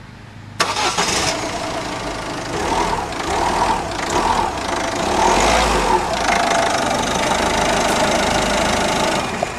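Citroën 1.6 HDi four-cylinder common-rail diesel engine starting about half a second in and then running steadily, heard with the bonnet open. This is its first start with an add-on power box just fitted, and it fires up.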